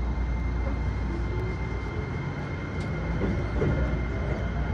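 Keisei 3000 series electric train pulling away from a station, its motors humming and whining as it gathers speed, heard from inside the car. From about halfway in, the wheels clack over rail joints.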